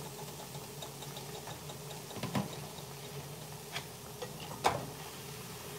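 Plantains frying in hot oil, the oil bubbling with a fine, steady crackle, while a metal slotted spoon lifts them out. The spoon gives a few sharp taps, the loudest near the end.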